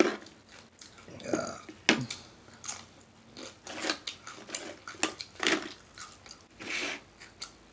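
Close-up chewing of a mouthful of shrimp salad: wet lip smacks and mouth clicks at an uneven pace, about one or two a second.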